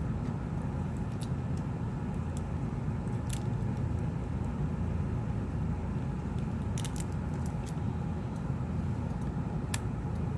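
A steady low background rumble, with a few light, scattered clicks of small parts and tools being handled on the opened tablet.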